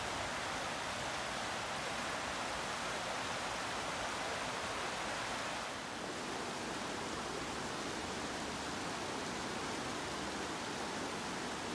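Steady rushing noise with no rhythm or pitch; it dips briefly and shifts slightly about six seconds in.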